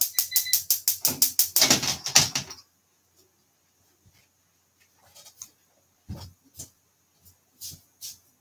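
Gas stove igniter ticking rapidly, about six clicks a second, for about two and a half seconds as a burner is lit under the frying pan. A few faint knocks follow.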